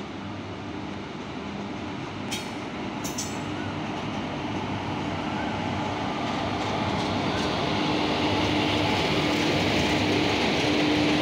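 WAP-4 electric locomotive hauling a passenger train out of the station, its steady hum and wheel rumble growing louder as it draws level and passes. Two sharp metallic clicks come about two and three seconds in.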